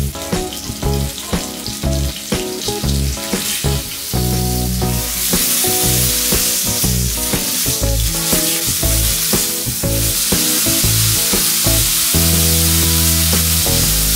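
Fat cap of a tomahawk steak sizzling steadily on a hot ridged grill pan as the fat renders, the sizzle growing louder about five seconds in. Background music with sustained notes and bass plays underneath.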